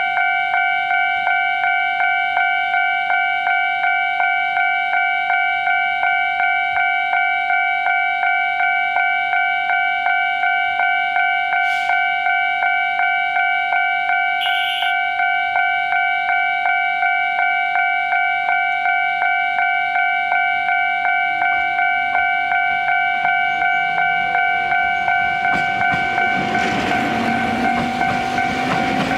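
Railway level-crossing alarm ringing its tones in a fast, even repeating rhythm, noted as faster than other crossings' alarms. Near the end the rumble of a Yōrō Railway 600-series train builds as it approaches.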